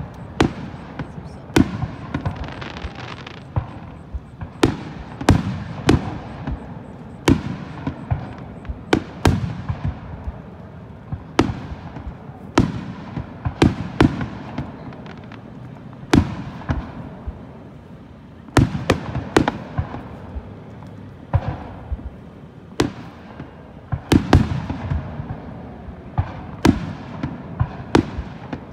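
Aerial firework shells bursting in an irregular string of sharp bangs, roughly one every second or two, each trailing off in a fading rumble.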